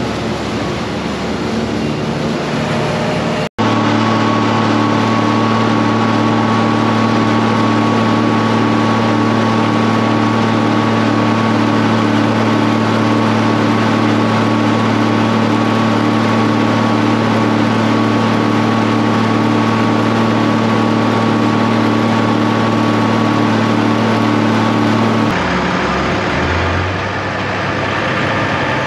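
John Deere utility tractor's diesel engine running steadily at an even speed. The sound breaks off for an instant about three and a half seconds in. Near the end the engine sound shifts as the tractor is driven off.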